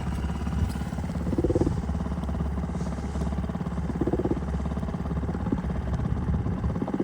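Small two-horsepower outboard motor running steadily, with a short higher note rising over it about every three seconds.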